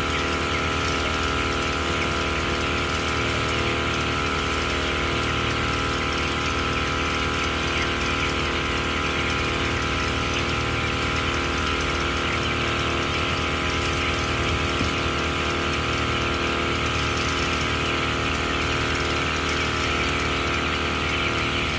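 Machinery running steadily: a constant hum made of many fixed tones, with a dense high hiss-like chatter above it that does not change.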